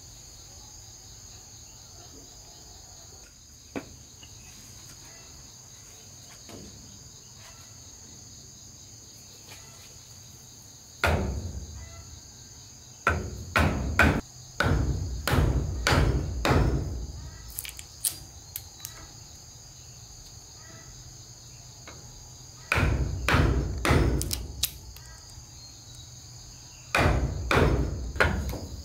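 Hammer blows on timber in three runs of strikes, roughly two a second, over a steady high drone of insects.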